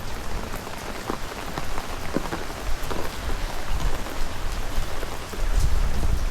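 Steady rain falling, with scattered sharp drop ticks close to the microphone. Near the end a strong low rumble builds.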